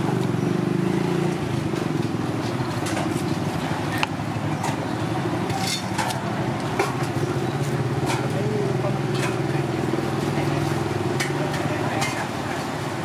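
Steady low rumble of nearby street traffic and engines, with indistinct voices and scattered sharp clicks of a knife tapping a wooden chopping block as fish is filleted.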